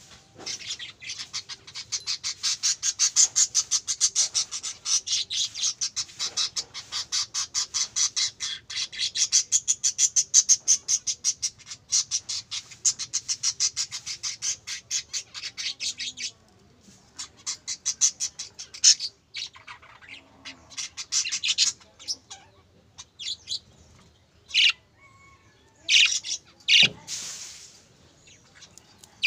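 Budgerigars chattering. A fast, dense run of high chirps fills about the first sixteen seconds, then the chatter breaks into scattered single calls.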